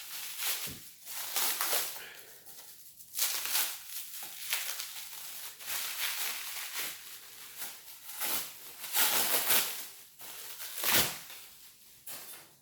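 Packaging being crinkled and pulled off a forge component by hand, in irregular rustles with a couple of soft knocks as the part is handled.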